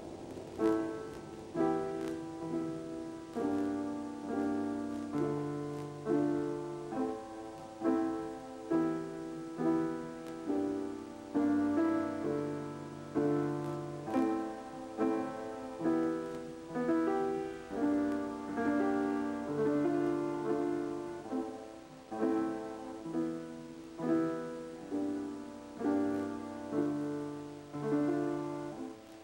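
Piano music: a steady run of chords, each struck and dying away, at roughly one and a half a second.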